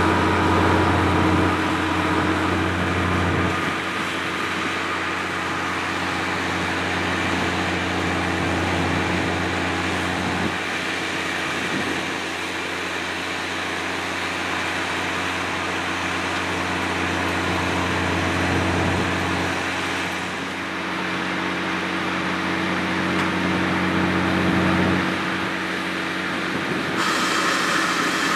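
John Deere tractor's diesel engine running steadily, driving the HiSpec slurry tanker's pump while slurry is moved through a hose, with a constant rushing whir over the engine's hum.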